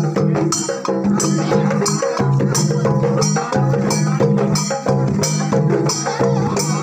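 Traditional Garo dance music: drums and struck percussion keeping a steady beat of about two strokes a second over a held low pitched layer.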